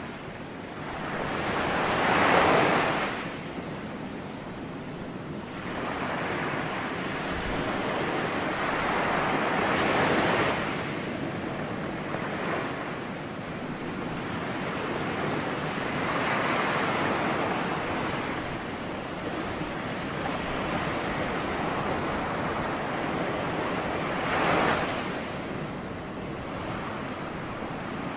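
Ocean waves breaking and washing on the shore, a steady wash of surf that swells with each wave about every six to eight seconds, the strongest about two seconds in and another sharper crest near the end.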